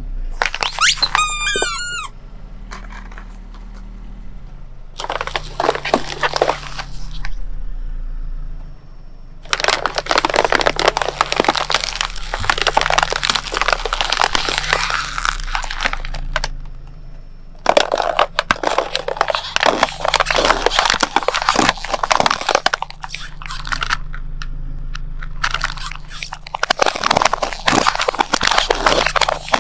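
Car tyre rolling over and crushing objects: a squeaky toy gives a wavering squeal about a second in, then long stretches of crunching and cracking follow. Near the end, thin plastic flower pots crack and split under the wheel. A low steady hum runs underneath.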